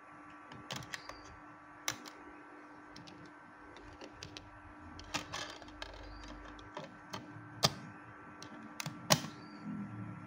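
Sharp plastic clicks and snaps of a Sony D-202 Discman portable CD player being handled: the open button pressed, the lid springing up, a CD pressed onto the spindle and the lid snapped shut. The loudest snap comes about nine seconds in.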